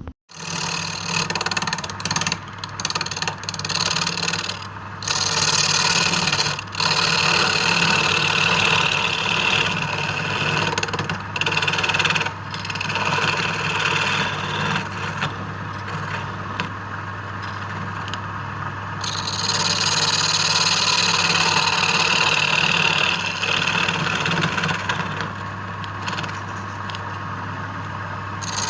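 A wood lathe's motor hums steadily while a tool scrapes and cuts the spinning wood. The cutting noise swells and eases in long passes and is loudest between about five and twelve seconds in and again around twenty seconds. The sound starts suddenly at the beginning.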